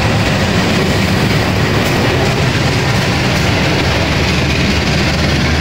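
KAI CC 206 diesel-electric locomotive (GE C20EMP) passing close by. Its diesel engine runs with a steady low drone over the noise of its wheels on the rails.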